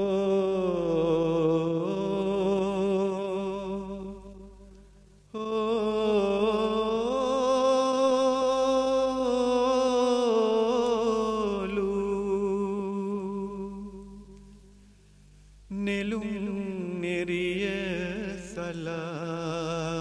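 A wordless sung melody, hummed in three long sustained phrases with vibrato over a steady low drone, opening a Sinhala song.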